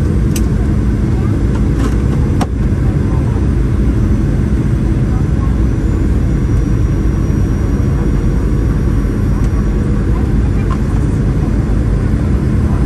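Steady, loud rumble of a Boeing 737 MAX's engines and airflow heard inside the passenger cabin, with a few faint clicks in the first couple of seconds.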